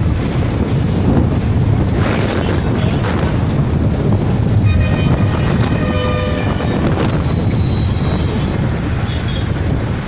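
Busy road traffic heard from a moving vehicle: a steady low rumble of engines and tyres, with wind on the microphone. Short pitched vehicle-horn blasts sound around the middle.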